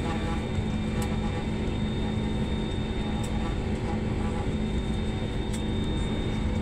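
Steady cabin noise of a jet airliner taxiing, its wing-mounted turbofan engines running with a low rumble and a few steady high whines on top.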